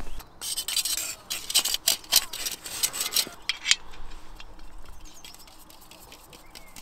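Rustling, rubbing and scraping with many light clicks as camp cooking gear is handled. The clicks are busy for the first few seconds, then the sound dies down to faint rustling.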